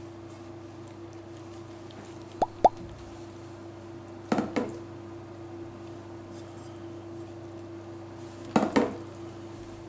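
Raw pork leg steaks laid onto fried sauerkraut in a pan: soft wet slaps coming in pairs, twice, with two sharp clicks about two and a half seconds in. A steady low hum runs underneath.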